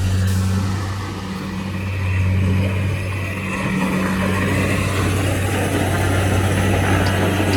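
Rice combine harvester running steadily: a constant low engine hum with a dense mechanical rush from the machinery over it.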